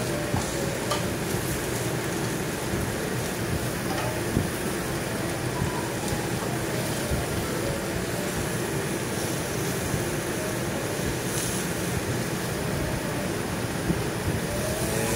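Beaten egg sizzling on a hot teppanyaki flat-top griddle, against a steady rushing kitchen noise, with a few light clicks.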